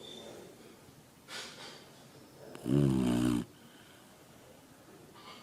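Slow, regular snoring: one buzzy snore lasting under a second about three seconds in, with a softer breathy breath about a second in.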